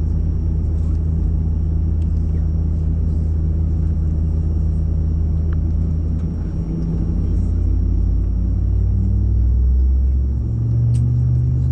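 Low steady rumble inside an Airbus A220-100 cabin as the aircraft moves off the gate, with a faint high whine above it. About six seconds in, the low hums shift in pitch and grow a little louder.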